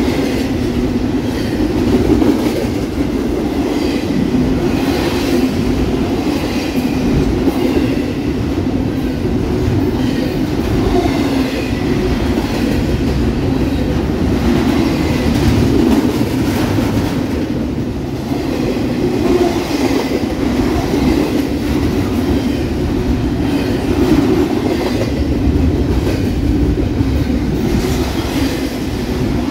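Double-stack intermodal freight train rolling close past: the steady rumble of the loaded well cars with the clacking of their wheels on the track.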